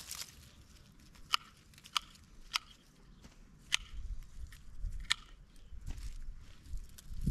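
Hand pruning shears snipping stems of wilted perennials and weeds: a handful of sharp snips at uneven intervals, over light rustling of the plants being handled.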